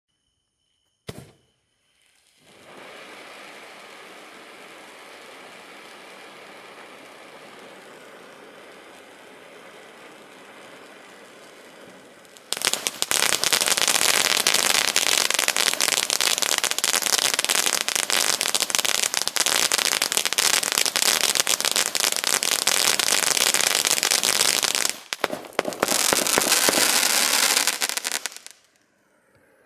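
A 24-shot consumer firework cake: a steady hiss for about ten seconds, then dense, loud crackling from about twelve seconds in, as it fires shots of crackling stars, with a brief dip shortly before it stops.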